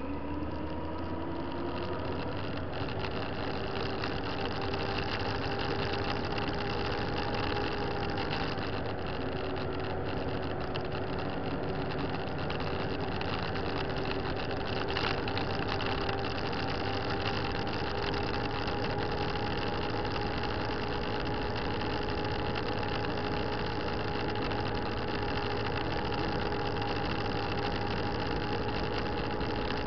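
Motorcycle engine running while riding, its pitch rising briefly at the start and then holding nearly steady, over a constant rush of wind and road noise.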